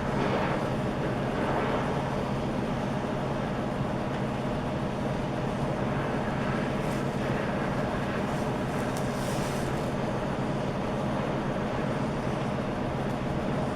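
Oxy-acetylene torch with a cutting tip burning steadily, heating the work for brazing.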